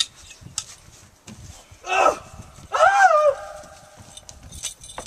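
A sharp clack of prop swords striking at the start, then a person's short cry about two seconds in and a loud, high yell that rises and falls a second later.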